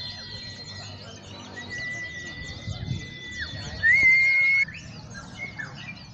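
Many white-eyes (pleci) chirping and twittering together in rapid, high-pitched bursts. Over them runs a steady whistle-like tone, held for a couple of seconds and then again, loudest and briefly about two-thirds in, where it cuts off suddenly.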